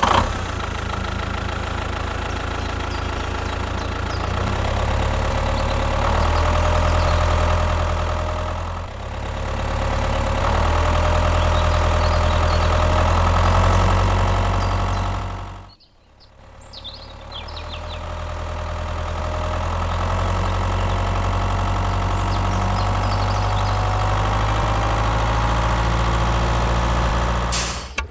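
An engine running steadily with a deep rumble. It cuts out almost to silence about halfway through, then comes back up, with a slowly rising whine in the second half.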